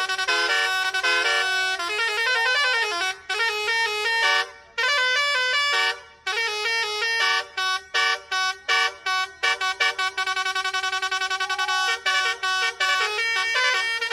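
Bus basuri (telolet) musical air horn playing a loud melody: a string of horn notes stepping up and down in pitch. A run of quick clipped notes comes in the middle, then longer held notes toward the end.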